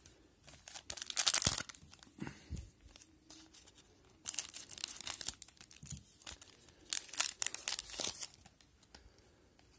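Scissors cutting open a foil trading-card pack, the foil wrapper crinkling in several short bursts as it is handled and opened.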